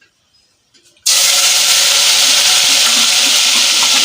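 Hot bleached palm oil in a pot sizzling hard: a loud, steady hiss that starts abruptly about a second in, after near silence.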